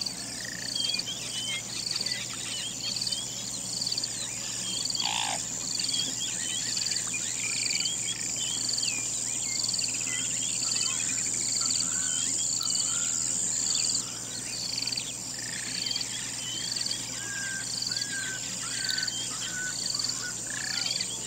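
Night chorus of insects: a steady high-pitched trill with a chirp pulsing a little more than once a second, and scattered short chirping calls over it. A single brief falling call comes about five seconds in.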